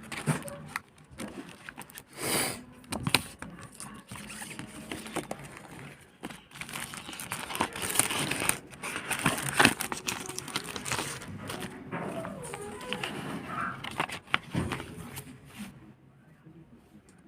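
Packaging being handled and opened by hand: irregular crinkling, tearing and scraping with scattered clicks, busiest in the middle and dying away near the end.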